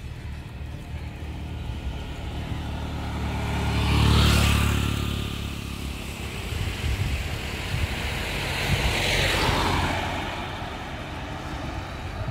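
Two road vehicles passing close by, one about four seconds in and another about nine seconds in, each swelling and then fading away.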